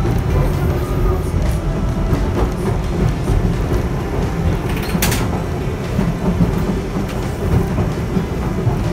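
Vintage electric tram running, heard from on board: a steady low rumble of wheels and motor, with one sharp clack about five seconds in.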